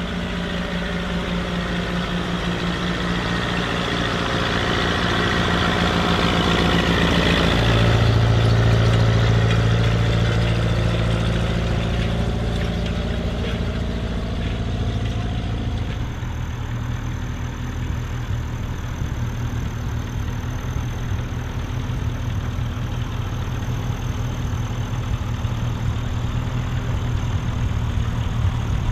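Vintage Ferguson tractor engines running steadily under load while pulling tillage implements through the soil. The engine note shifts slowly over the first several seconds and changes character about halfway through.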